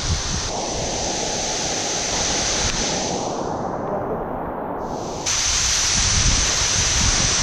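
Small waterfall pouring down rock, a steady rush of falling water that steps up louder about five seconds in.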